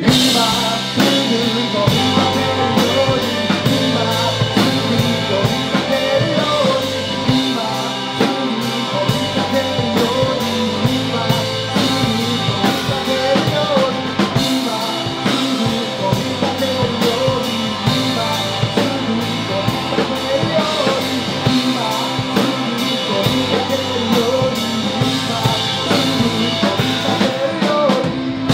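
Live rock band playing: electric guitars, bass guitar and drum kit, with a male lead singer.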